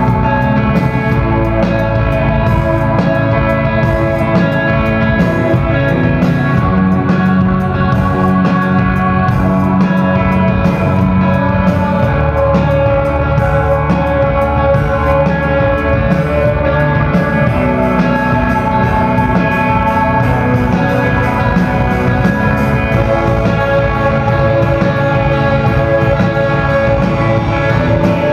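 Live instrumental rock band playing loudly: electric guitars through Marshall amplifiers, keyboards, bass and drums, with many held notes layered at a steady level and no singing. Heard from far back in a concert hall.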